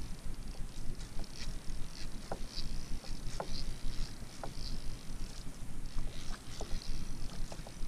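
Small waves lapping and slapping against a plastic kayak hull, with irregular plops and clicks, over a steady low rumble of wind on the microphone.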